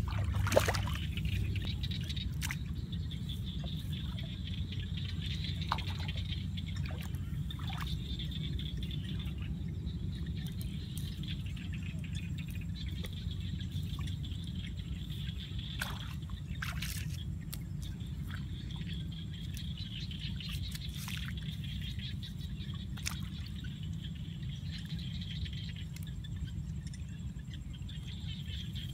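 Wet mud squelching and slapping in the hands as it is scooped from the paddy and packed onto a bamboo fish trap, with water trickling and dripping. Scattered sharp wet clicks over a steady low rumble.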